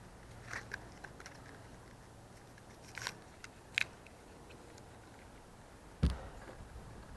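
Scattered small clicks and scrapes of hand work on a plastic clearance light fixture. About six seconds in comes one dull thump, the loudest sound.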